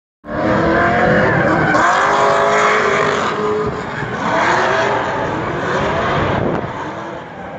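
A drift car's engine revving hard and rising and falling in pitch over and over as the car slides, with tyre noise from the sliding tyres.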